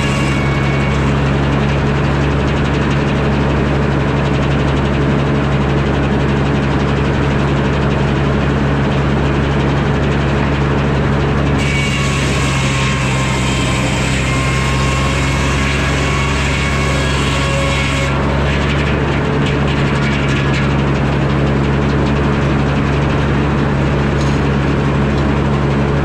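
Engine of a Frick sawmill running steadily under power. For about six seconds in the middle, a higher whine and hiss joins it as the saw blade cuts through a pine log.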